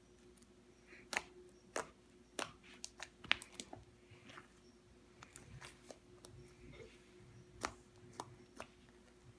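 Irregular sharp clicks and taps, about twenty in a few seconds, over a faint steady hum.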